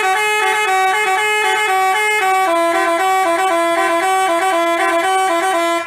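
Basuri telolet multi-tone horn playing its melody: several horn notes sound together and step up and down in pitch every fraction of a second, loud and unbroken.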